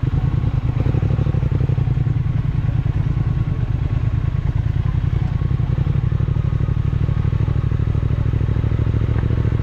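Triumph Speed Twin 1200's parallel-twin engine running at a steady, low engine note as the bike rides slowly over a rough dirt track.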